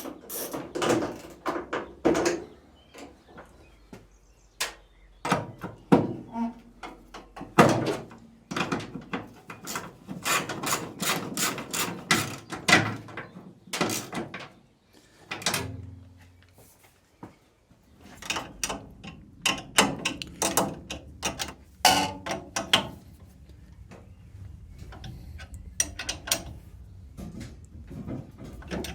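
Ratchet wrench clicking in quick runs as subframe bolts are run in and tightened, with metal knocks and clunks in between.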